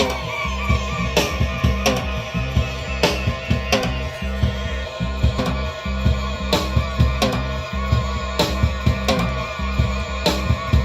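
A homemade rock backing track playing: a steady drum beat and bass, with looped fake bird sounds, short squealing chirps, repeating over them.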